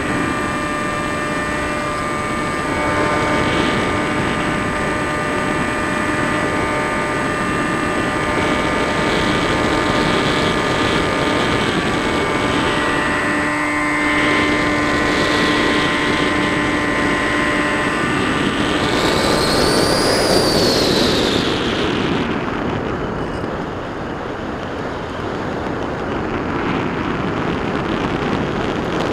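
R-Planes Pioneer FPV model plane's motor and propeller whining steadily in flight, heard from on board with wind noise over the microphone. About twenty seconds in the pitch swoops up and back down, then the motor tone fades out, leaving mostly wind noise.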